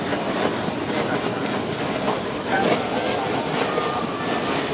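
Handheld butane kitchen torch flaming with a steady rushing hiss, over a background of market clatter.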